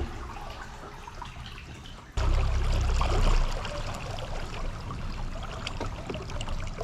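Water trickling and splashing around a kayak, with small scattered drips. About two seconds in, a loud low rumble sets in suddenly and continues.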